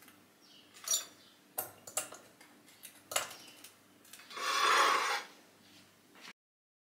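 Objects being handled: a few light clicks and knocks, then a louder rush of noise about a second long just past the middle, and the sound cuts off abruptly near the end.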